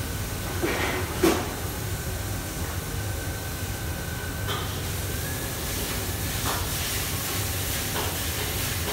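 Steady hiss and hum of a commercial kitchen's extraction hood and fans, with a faint thin whine that shifts slightly in pitch about halfway through. Stainless-steel trays clatter about a second in, the loudest sound, and a few lighter metal clinks follow later.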